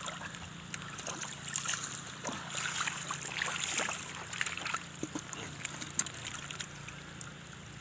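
Shallow seawater splashing and sloshing as feet wade through it, with irregular small splashes and drips. About six seconds in comes a sharp knock as a fish is dropped into a plastic bucket.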